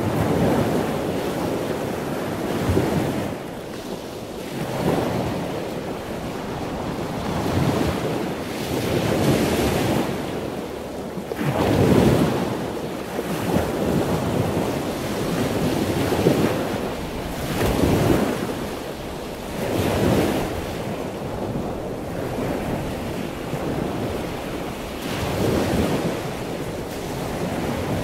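Storm surf breaking and washing in, swelling in repeated surges every few seconds, with wind buffeting the microphone.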